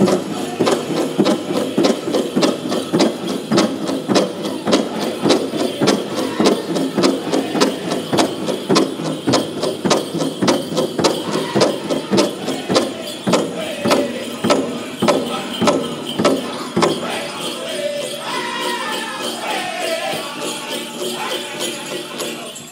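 Powwow drum and singers performing a chicken-dance song: a big drum struck in a fast, steady beat under group singing, with jingling from the dancers' bells. The drumbeat stops about 17 seconds in, and voices carry on alone.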